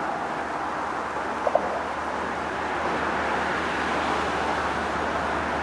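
Distant freight train with GE diesel locomotives approaching: a steady rumble and hiss that slowly grows louder. A brief double chirp comes about one and a half seconds in.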